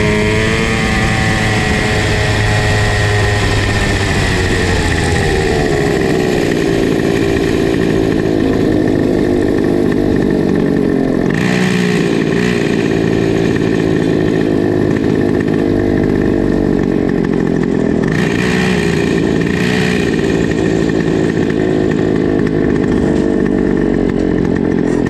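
Comer C50 50cc single-cylinder two-stroke kart engine coming off the throttle, its revs falling over the first few seconds, then idling steadily, with a few brief rises in revs in the middle.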